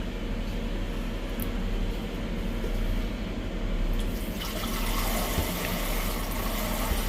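Water running from a kitchen tap, the flow getting stronger and brighter about four seconds in.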